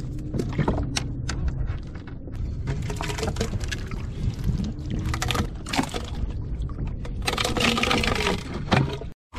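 Water sloshing and splashing against a plastic kayak hull, with repeated sharp clicks and knocks as gear is handled on the deck. The sound breaks off suddenly near the end.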